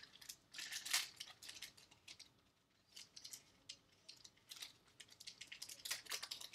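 A Bowman Chrome baseball card pack being torn open, its foil wrapper crinkling and the cards rustling. The crackles come in irregular bursts, strongest about a second in and again near the end.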